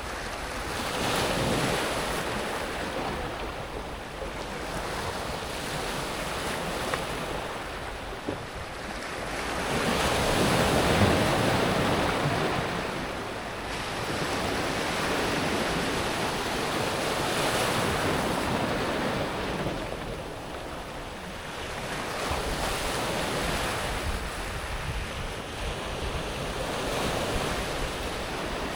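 Small sea waves breaking and washing over a pebble beach, the surge swelling and ebbing every few seconds, with the biggest wash about ten seconds in.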